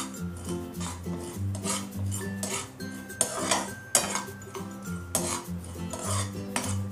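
Poppy seeds being stirred as they dry-roast in a non-stick kadhai, a spoon scraping and tapping the pan in short repeated strokes. Soft background music plays underneath.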